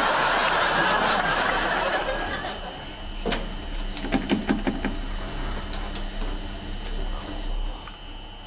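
Audience laughter that fades out after about two and a half seconds, then a few sharp clicks and knocks as a coin-operated washing machine is handled, over a steady faint hum.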